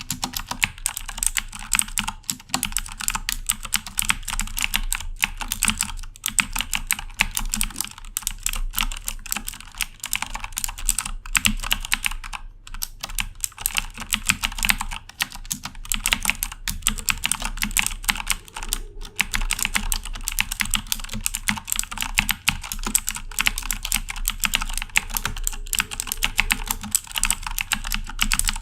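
Continuous fast typing on a Corsair K70 mechanical keyboard with Cherry MX Blue switches: a dense stream of sharp clicky keystrokes, with a brief pause about halfway.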